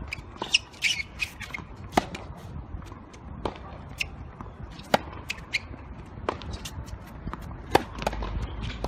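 Tennis rally: a ball struck back and forth with rackets. Three loud hits come about three seconds apart, with fainter hits from the far end of the court between them and lighter clicks of bounces and footsteps.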